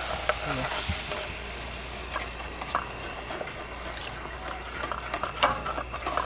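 A butter-and-flour roux sizzling in a pot as water is stirred in a little at a time to make gravy. A ladle scrapes and clicks against the pot now and then, sharpest about five and a half seconds in.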